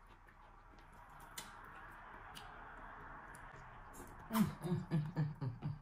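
Close-up eating sounds: a long soft slurp as slimy okra soup is sucked in from the fingers, then wet mouth clicks and short hums while chewing, near the end.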